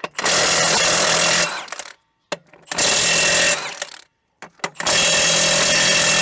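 Milwaukee M18 FUEL 3/4-inch cordless impact wrench hammering in three bursts of one to two seconds as it undoes 30 mm tractor wheel nuts one after another. Short knocks sound in the gaps as the socket goes onto the next nut.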